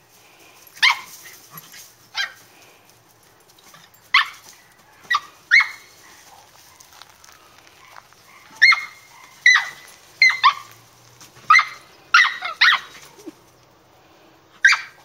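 Schnoodle barking during ball play: about a dozen short, sharp, high barks, spaced a second or so apart at first and coming quicker in the second half.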